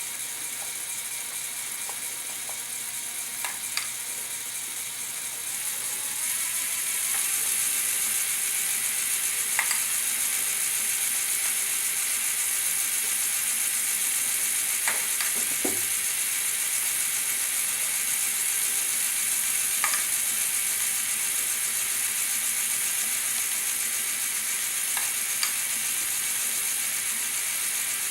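Motorized LEGO Technic mechanism running: a steady whirring hiss of motors and plastic gears that gets louder about six seconds in, with a sharp click roughly every five seconds.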